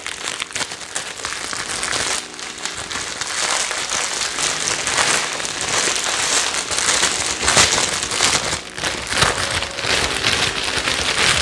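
Clear plastic wrapping crinkling and crackling continuously as it is pulled and peeled off a small box by hand.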